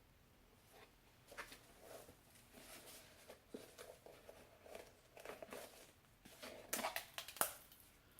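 Faint rustling and handling of jewelry packaging as a small box is opened and its contents taken out, with a few light clicks and a couple of sharper crinkles near the end.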